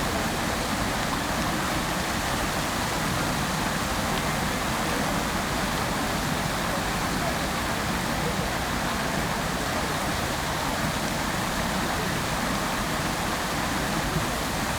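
Fountain water splashing and falling in a steady, unbroken rush.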